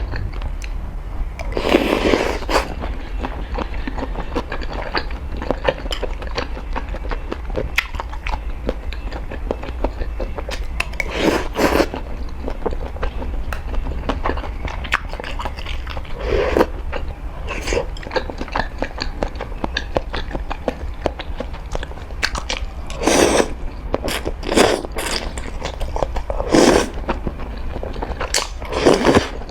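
Close-miked eating of spicy noodles: continuous wet chewing and mouth clicks, with several louder bursts spread through, likely slurps of noodles.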